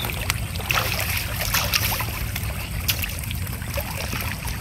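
Muddy floodwater in a rice field trickling and splashing past a woven bamboo fish trap, with a few sharp clicks as the trap is handled in the water.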